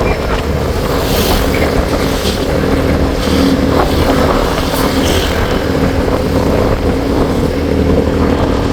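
Vehicle engine running at a steady pitch while driving, under a constant rush of wind noise.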